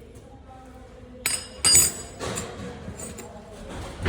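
Metal tools striking metal: two sharp clinks with a ringing tail a little over a second in, followed by lighter knocks and a heavier thump at the very end.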